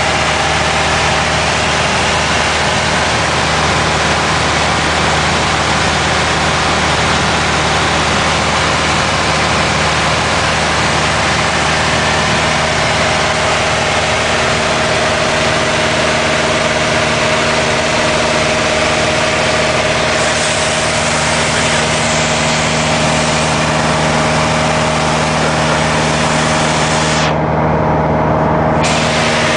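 A light aircraft's engine and propeller droning steadily in cruise flight, heard from inside the cabin: a constant low hum over a steady rush of noise.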